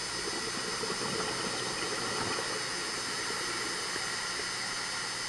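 Steady underwater hiss picked up by a video camera in a dive housing, with faint steady high-pitched tones over it.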